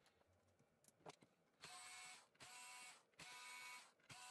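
Small electric screwdriver running in four short bursts, each a steady whine, backing out the screws that hold a laptop's CPU heatsink and fan assembly; a few light clicks come first.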